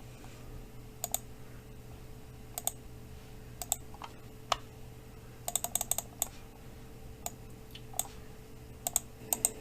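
Scattered clicks of a computer keyboard and mouse, single clicks with a quick run of several about five to six seconds in, over a faint steady hum.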